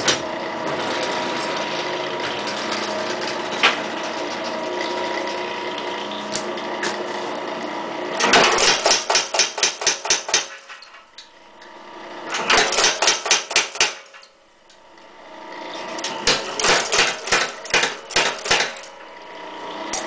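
Clay Spencer / Ray Clontz tire hammer (power hammer) forging hot steel in three runs of rapid blows, about five a second, each run lasting two to three seconds. A steady mechanical whir fills the first eight seconds before the blows begin.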